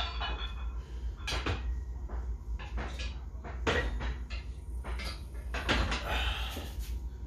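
Plate-loaded barbell knocking and clanking in a squat rack during a set, several sharp separate knocks, over a steady low hum.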